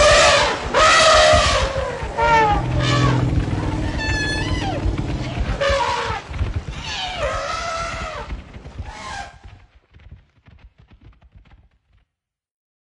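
Men shouting and yelling in loud bursts, with a high wavering cry about four seconds in. The shouting fades out about nine seconds in.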